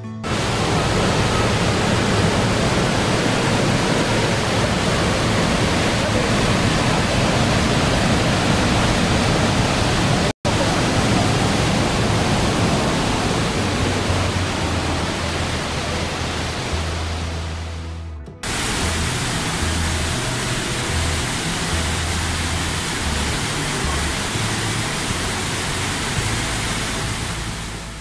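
Roar of the Rhine Falls: a loud, steady rush of heavy falling water, with music underneath. The sound breaks off for an instant twice, about ten and eighteen seconds in.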